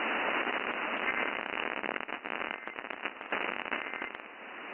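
Radio reception static: a steady hiss with irregular crackles, thickest in the middle, with the level wavering and dipping near the end.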